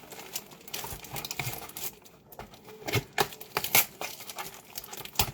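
Plastic toy packaging and tape being handled and pulled off: irregular crinkling and rustling with a few sharp snaps and clicks.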